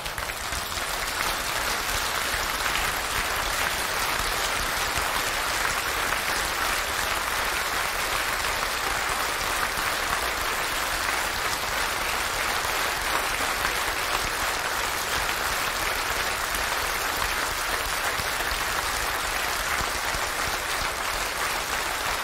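Large audience applauding, a dense steady clapping that swells at the start and holds throughout.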